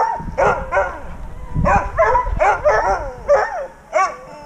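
Harnessed Siberian huskies yipping and whining in a rapid string of short calls that rise and fall in pitch: the excited noise of sled dogs held at the start line during the countdown.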